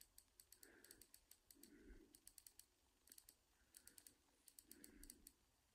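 Faint, quick ticks from an iPhone's time-picker wheel being scrolled, coming in clusters of several ticks with short pauses between.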